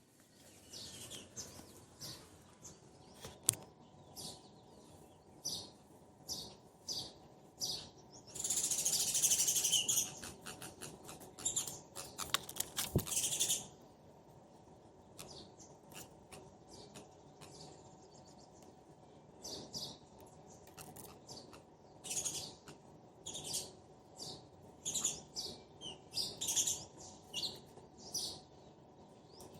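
A pair of sparrows calling back and forth in short, high chirps, with two stretches of dense, loud chattering about nine and twelve seconds in. A couple of sharp clicks are heard.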